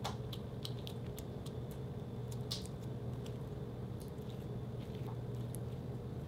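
White slime being pressed and kneaded by hand, giving scattered small wet clicks and pops as it folds and squishes, over a steady low hum.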